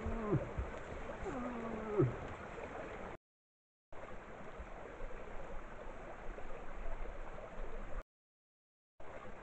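Steady running water, as of a stream. Two short calls that drop in pitch sound about a second and a half apart near the start. The sound cuts out to total silence twice.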